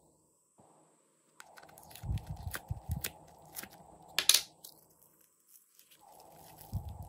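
Soft modelling clay rose being handled and squeezed between the fingers: soft thumps and crackly, tearing handling sounds, the loudest crackle about four seconds in.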